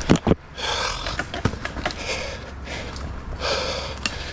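A mountain biker breathing hard in regular puffs about every second and a half while riding, over clicks and rattles from the bike on rough ground. Two sharp knocks come right at the start.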